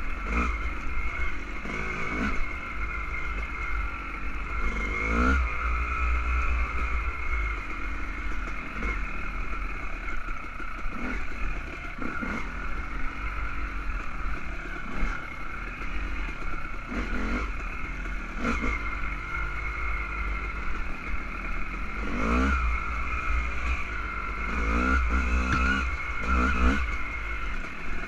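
Dirt bike engine revving up and easing off again and again as it rides a trail, heard through a helmet-mounted camera.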